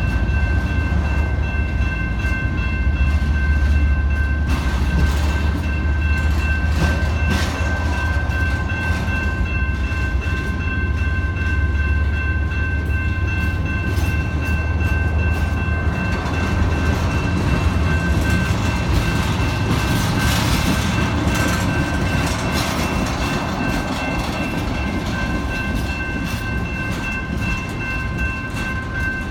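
Freight train cars rolling past: a steady low rumble with wheel clatter on the rails, and a thin steady high whine throughout.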